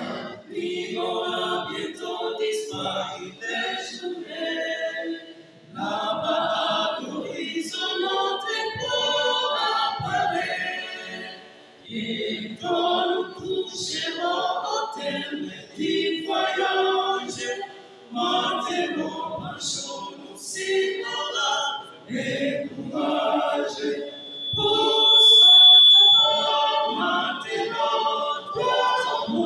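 Unaccompanied men's vocal group singing a religious song in several voices, in phrases of a few seconds with short breaks between them.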